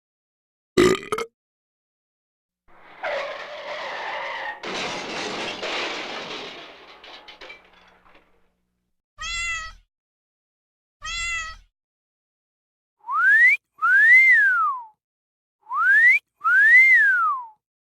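A run of comic sound effects: a click, then a burst of noise lasting about five seconds that fades out, two short meows, and a wolf whistle sounded twice, each a quick rising whistle followed by a rising-and-falling one.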